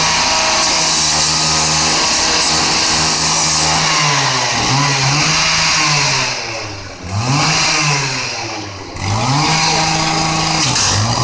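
Chainsaw running at high revs, cutting into a car, its engine pitch dipping and climbing back several times as the throttle is eased and opened again, over a harsh high hiss.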